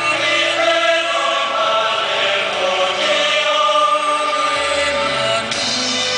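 Choir singing slow, held, chant-like notes.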